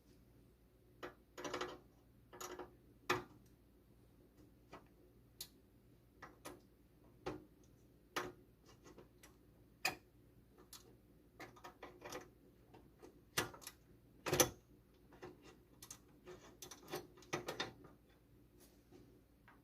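Hands handling desktop computer parts: irregular sharp plastic-and-metal clicks, taps and brief rustles, the loudest about fourteen seconds in.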